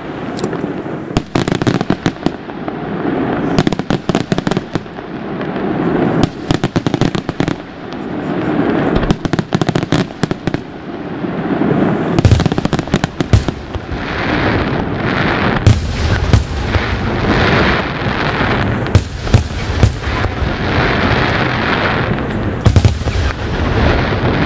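Aerial fireworks display: a rapid string of sharp shell bursts over a continuous noisy crackle. About halfway through it thickens into a denser barrage with deep booms.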